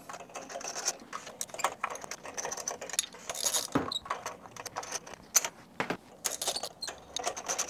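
A 14 mm spark plug socket and ratchet clicking and clinking as the spark plugs are loosened and unscrewed from a Toyota A25A four-cylinder engine, with light metal tapping as tools and plugs are handled. The clicks come irregularly, a few louder ones about four and six seconds in.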